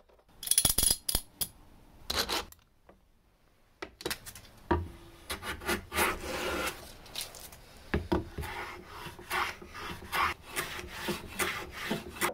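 Metal hand plane shooting the end grain of a wooden board on a shooting board: a run of rasping strokes, about two a second, as the blade takes shavings, some with a low knock. A couple of short wooden scrapes come before it.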